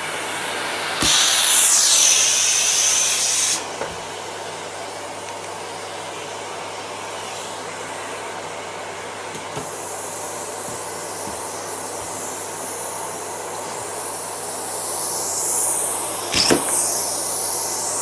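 Miele canister vacuum cleaner running steadily with a hissing suction rush. About a second in, the suction sound turns louder and higher into a whistle for a couple of seconds, then drops back. There are a few sharp knocks near the end.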